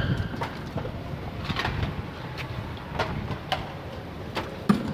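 Irregular knocks and clatter from roofers tearing off old wood shingles with hand tools, a few seconds apart, with a sharp knock near the end the loudest.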